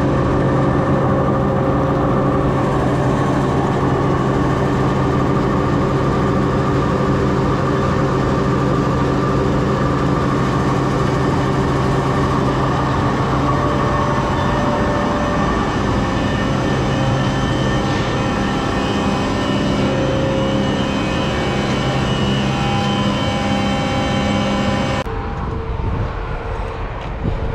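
Motor vehicle driving, heard from inside: a steady engine hum over road noise, with the engine note shifting about halfway through and the sound thinning out near the end.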